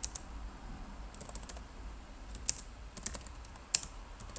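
Typing on a computer keyboard: irregular keystrokes, a few sharper key clicks in the second half.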